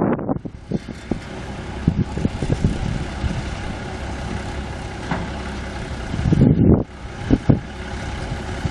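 Cummins six-cylinder turbo diesel engine of a 1979 International F2574 truck running steadily, with a few brief louder rushes of noise late on.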